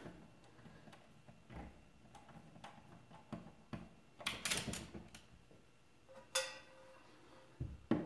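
Screwdriver backing out the screws of a metal light-switch wall plate: faint scraping and scattered small clicks of metal on metal, with one short ringing metallic ping about six seconds in.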